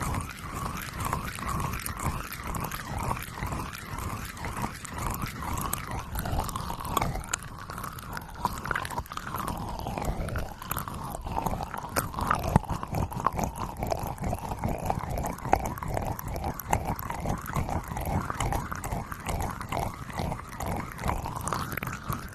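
Slime being squeezed and worked by hand, making rhythmic wet, sticky squelches a few times a second.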